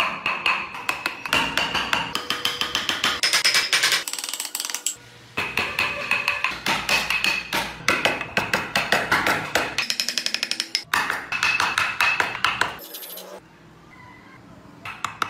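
A wood-carving chisel struck rapidly and repeatedly, cutting into the wooden body, many sharp taps a second. It comes in runs with brief pauses and goes quieter near the end.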